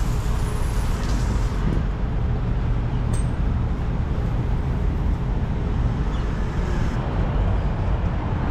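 Steady city road traffic noise, a low even rumble of passing vehicles.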